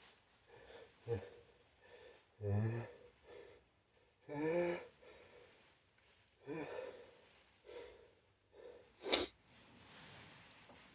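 A person's sneezing fit brought on by chhinkni sneezing powder: a few drawn-out, voiced gasping breaths as the sneeze builds, the loudest two near the start, then one short, sharp sneeze near the end.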